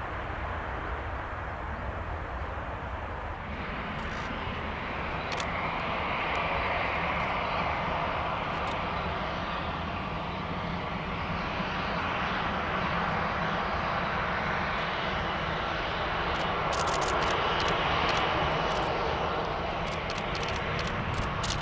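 Airbus A320 jet engines at low taxi thrust: a steady rushing whine that swells as the airliner passes, loudest about three-quarters of the way through. A few sharp clicks near the end.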